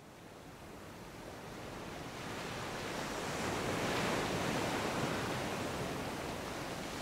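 Sea surf washing over a rocky shore: a steady rush of waves that fades in from silence and swells to its fullest about four seconds in.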